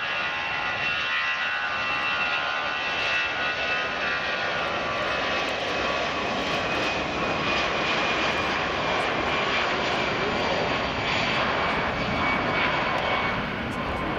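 Airbus A319-112's twin CFM56 turbofan engines at takeoff power. A steady whine of several high tones over the jet roar gives way, about halfway through, to a fuller, rougher roar.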